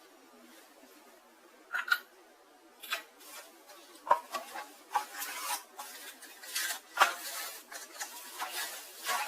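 Packaging being handled and unwrapped: irregular rustles and sharp clicks and knocks, starting about two seconds in and coming more often after about four seconds.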